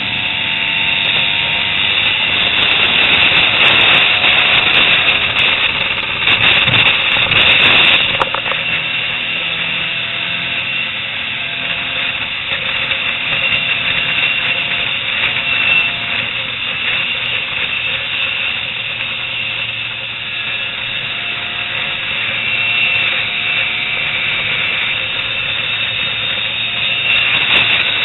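Small motorcycles running along at road speed, their engines heard under heavy wind rush on the microphone.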